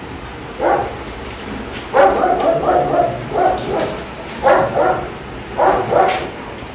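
Kangal shepherd dog barking repeatedly: about ten short barks, several coming in quick pairs.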